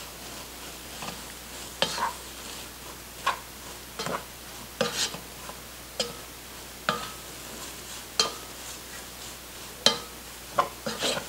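A spatula stirring shredded turkey and onions in a large nonstick pot, with short scrapes and taps against the pan about once a second, a few with a brief ring of the metal.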